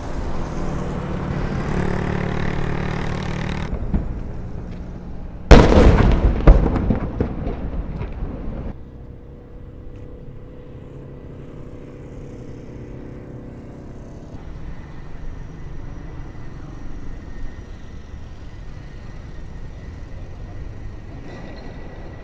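A ceremonial gun salute. A single cannon boom comes about five seconds in and its echo rolls away over about three seconds, with a second crack about a second after the first. Before it there is a steady low rumble, and after it a quieter steady background.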